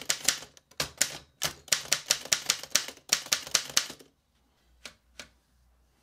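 Underwood No. 3 manual typewriter typing a line: a quick run of sharp key strikes for about four seconds, then two single clicks about a second later.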